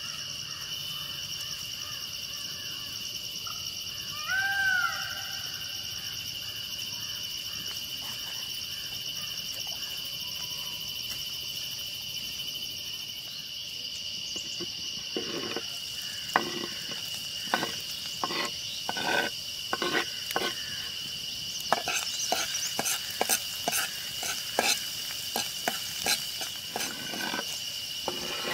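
Insects droning steadily in the background, with a short bird call about four seconds in. From about fifteen seconds there are irregular sharp clicks and knocks from the cooking, which come faster after about twenty-two seconds.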